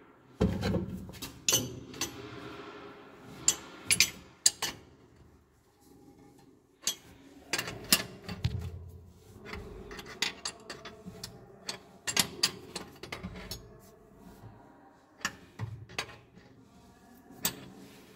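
Adjustable wrench clinking and scraping on the brass hose nuts of chrome angle stop valves as the flexible basin hoses are worked tight, giving irregular sharp metallic clicks and knocks with rubbing in between.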